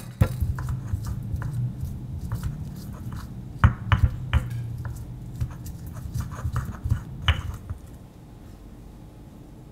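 Stone pestle grinding shallots and garlic in a stone mortar: a continuous scraping rumble with a few sharper knocks of stone on stone, mostly around the middle. The grinding stops about 8 seconds in.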